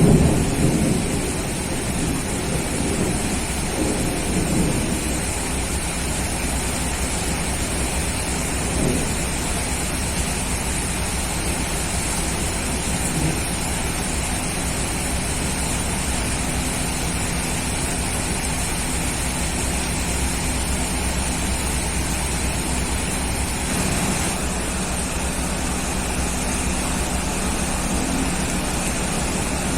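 Steady heavy rain, with a low rumble of thunder dying away in the first second or so and fainter rumbles a few seconds in.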